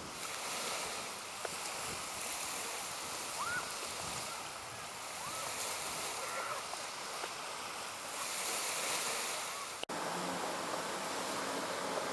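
Small waves washing onto a sandy beach, a steady rush of surf that swells and eases, with a few faint short rising chirps in the middle. The sound breaks off abruptly nearly ten seconds in and resumes as a steadier hiss.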